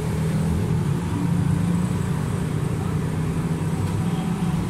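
Steady low drone of a motor vehicle engine running, without a break.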